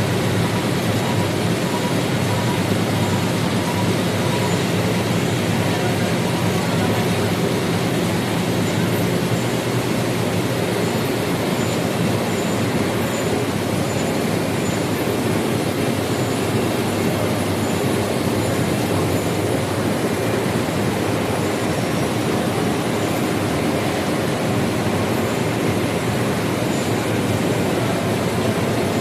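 Central-impression flexographic printing press running at production speed, about 198 metres a minute, printing a kraft paper web: a steady, even mechanical running noise of rollers and drives with a low hum underneath.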